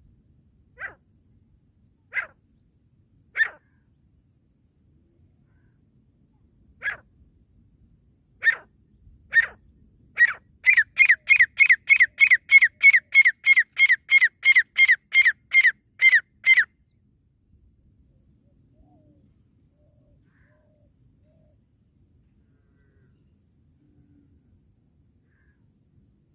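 Francolin (teetar) calling: single sharp notes spaced a second or more apart, then a fast, even run of about twenty notes at roughly three a second that stops abruptly after about six seconds.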